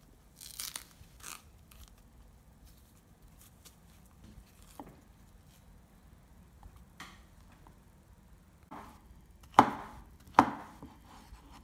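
Banana peel torn away with a soft ripping rustle near the start, then a kitchen knife cutting through banana and knocking on a bamboo cutting board: three sharp chops near the end, the last two loudest.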